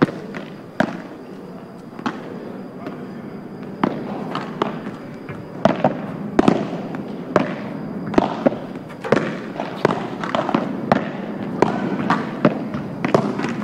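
Padel balls being struck with paddles and bouncing on the court: a run of sharp pops, a few at a time at first and coming more often after about four seconds.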